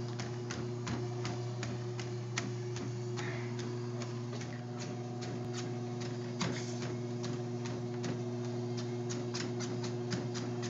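A steady low electrical hum under a quick run of sharp ticks, several a second and slightly uneven.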